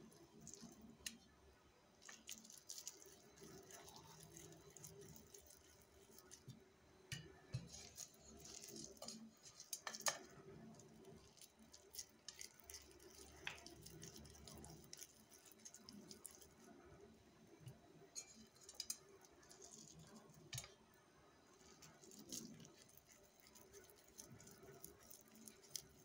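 Quiet, soft squishing and patting of hands rolling raw ground-beef mince into small meatballs, with scattered light clicks and taps throughout, the sharpest about ten seconds in.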